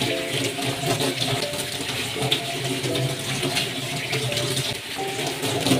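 Tap water running steadily into a stainless steel sink, splashing as boiled pork intestines are rinsed and squeezed by hand under it.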